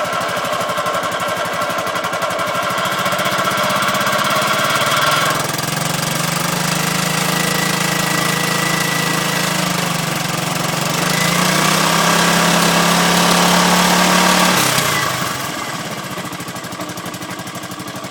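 Honda Big Ruckus scooter's single-cylinder four-stroke engine idling steadily, with no metallic rattle now that the loose muffler clamp has been tightened. The sound grows somewhat louder for a few seconds and eases off again near the end.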